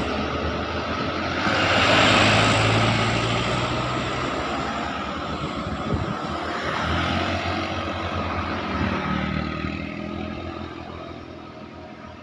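Heavy road vehicles driving past: engine hum and road noise swell to a peak about two seconds in and die away, then another engine passes a few seconds later before the sound fades out.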